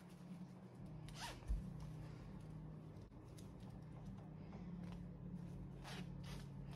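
A zipper on a shorts pocket being pulled, twice: once about a second in and again near the end, each a short rasp over a steady low hum in the room.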